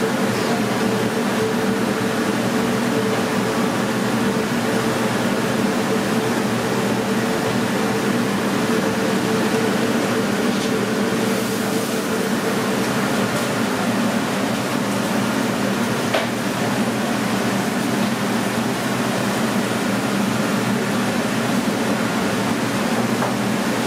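Steady mechanical hum and rush of commercial kitchen ventilation fans, unchanging throughout, with a few faint clicks.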